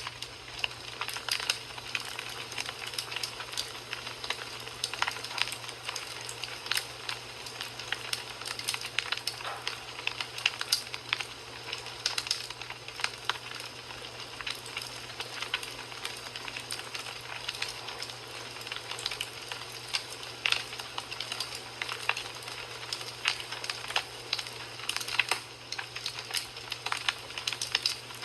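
Wood fire crackling in a fireplace: a steady hiss with frequent irregular sharp pops and snaps.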